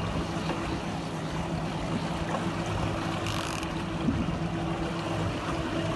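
Fishing boat's engine running steadily under way, a low hum under the rush of wind and water. A brief hiss comes about three seconds in.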